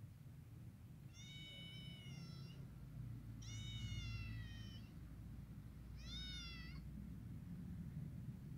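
A three-week-old kitten mewing three times in high, thin calls, the middle one the longest and sliding down in pitch at its end, the last one short. A low rumble sits underneath.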